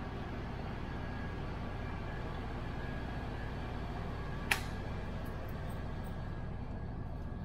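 Steady low rumble of a ferry under way, heard on its enclosed vehicle deck, with one sharp click about four and a half seconds in as the trailer's door is handled.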